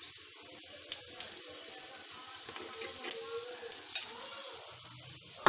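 Cooking oil sizzling steadily on a paratha on a hot tawa, with a few sharper crackles.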